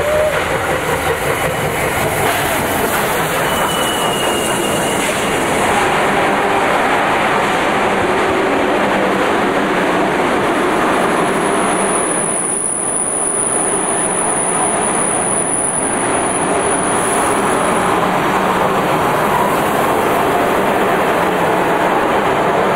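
Train rolling along the track: a steady, loud rumble and clatter of wheels on rail. Thin wheel squeals come through briefly about four seconds in, then a longer, very high one around the middle.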